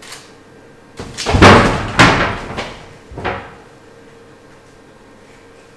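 A person collapsing to the floor behind a bar counter: several heavy thuds and knocks over about two and a half seconds, the loudest about a second and a half in.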